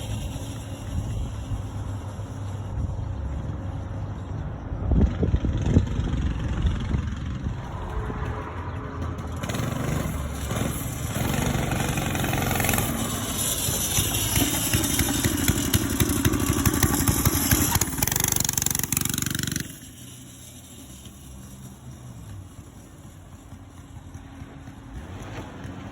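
Small single-cylinder pressure-washer engine on a homemade mini-bike, running through a custom exhaust. Its speed rises and falls through the middle, then the sound drops suddenly to a quieter steady running about twenty seconds in.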